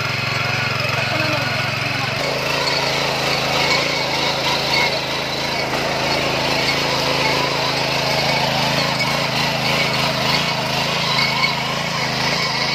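Small 5.5 hp petrol engine of a gear-drive power weeder running steadily under load as its rotary tines churn through dry soil, with a shift in its note about two seconds in.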